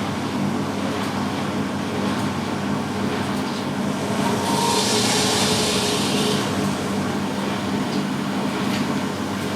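Three washing machines spinning together, a steady mechanical drone with a low hum from the fast-turning drums. A hissing rush swells up about halfway through and fades after a couple of seconds.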